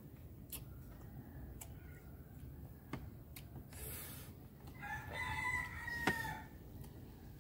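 A rooster crowing once, a single held call of about a second and a half starting a little under five seconds in. A few sharp clicks come before and during it.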